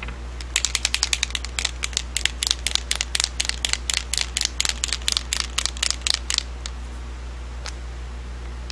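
A paint marker being shaken, its mixing ball rattling in quick, even clicks about five times a second, stopping about six and a half seconds in.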